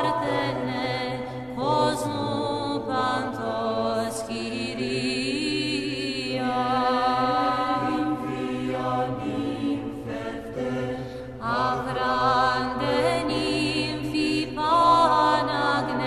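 Voices chanting together in long sustained notes that shift pitch every second or two, over a steady low drone.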